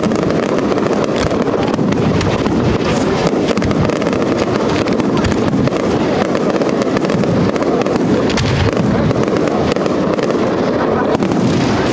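A Spanish professional fireworks display firing a dense, continuous barrage: comets and aerial shells launching and bursting in quick succession, with sharp reports following one another without a break.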